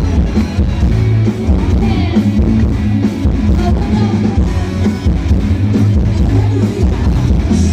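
Live band music with drum kit, bass and guitar playing a steady beat.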